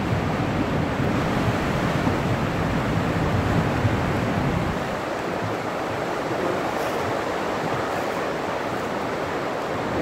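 Sea swell washing and breaking against rock inside a sea cave, a steady rush of water. A low rumble eases off about halfway through.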